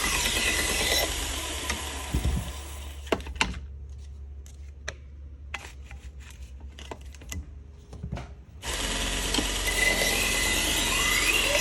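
Harbor Freight 1x30 belt sander running with a steady high whine, then winding down and stopping in the first few seconds. A few seconds of quiet follow with light clicks and taps. About two-thirds of the way in, the sander is switched back on and runs again.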